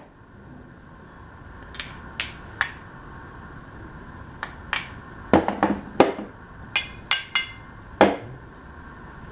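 Cast aluminium parts of a disassembled weed eater two-stroke engine being handled and set down on a wooden bench. The parts give scattered clinks and knocks with brief metallic ringing, coming thicker between about five and eight seconds in.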